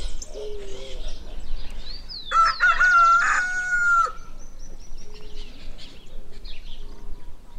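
A rooster crows once, a loud call of about two seconds starting a little over two seconds in. Another bird keeps up short, low hooting notes, and small birds chirp.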